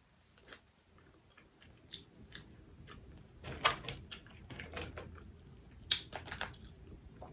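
Boiled crawfish shells crackling and snapping as they are peeled apart by hand, in irregular clicks that grow more frequent after the first second or so, mixed with close-up chewing.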